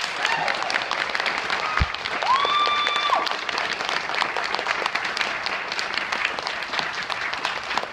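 Audience clapping steadily, with a single high held whoop rising and falling about two seconds in.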